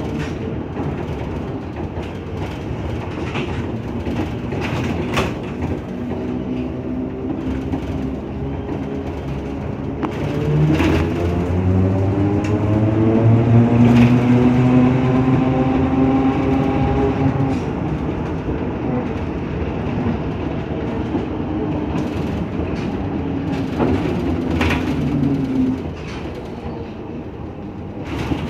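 Riding in a large vehicle over a milled road surface: a steady running rumble with scattered knocks and rattles, and a motor whine that rises in pitch as the vehicle picks up speed, starting about a third of the way in, then holds and fades near the end.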